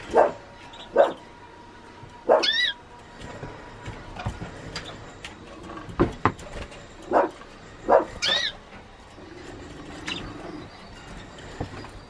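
A dog barking: several short, separate barks, two of them drawn out into a rising yelp.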